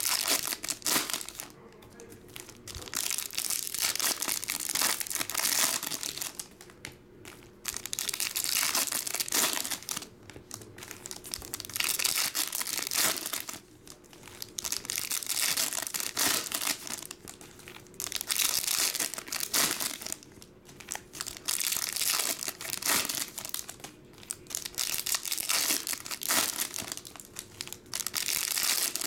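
Foil trading-card pack wrappers crinkling and tearing open, in repeated bursts a few seconds apart as one pack after another is ripped open.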